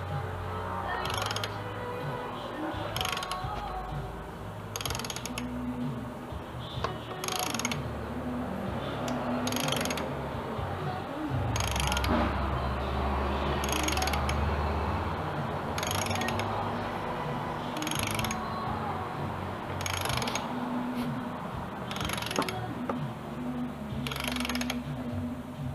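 Socket ratchet wrench being worked on a bolt, a short burst of ratchet clicks about every two seconds, over background music.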